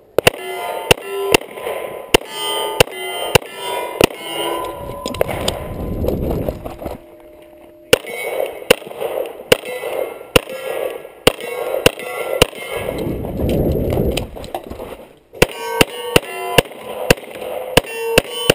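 Handgun fired in rapid strings of shots, with short metallic rings after many of them from steel targets being hit. Three bursts of firing are broken by pauses of a couple of seconds.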